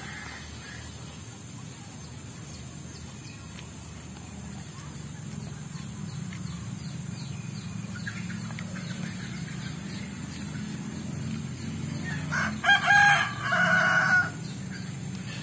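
A rooster crows once near the end, a loud call of about two seconds, over a steady low hum.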